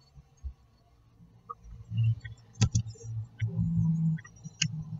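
Trouser fabric being handled and shifted about on a tabletop: quiet at first, then low rustling and bumps with a pair of sharp clicks about two and a half seconds in and another click near the end.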